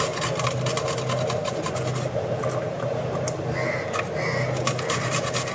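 Peeled garlic cloves being grated on a stainless steel box grater: a fast, even run of rasping strokes over a steady low hum.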